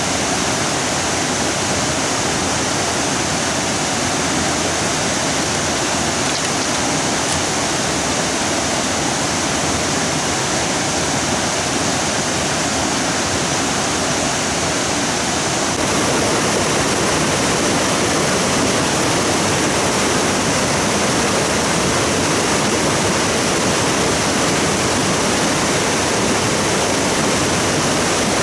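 Stream water rushing steadily, a dense even sound, a little louder from just past halfway.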